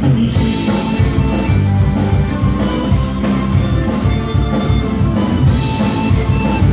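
Live folk-rock band playing an instrumental passage: accordion, a folk whistle and violin carry the tune over acoustic guitar, bass guitar and a drum kit keeping a steady beat.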